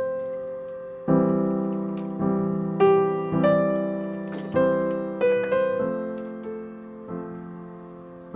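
Slow, gentle solo piano background music: single notes and soft chords struck one at a time, each left to ring and fade.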